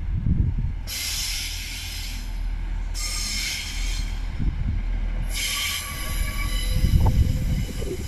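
Pacer diesel railbus rolling slowly past with a low rumble, its wheels squealing on the rails in three high, hissing bouts.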